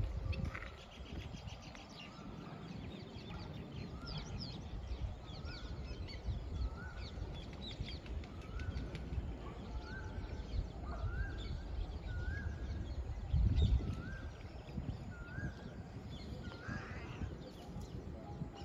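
Wild birds calling outdoors by the water: one bird repeats a short rising note about once a second, with scattered higher chirps from others. Under it runs a low rumbling noise that swells briefly about two-thirds of the way through.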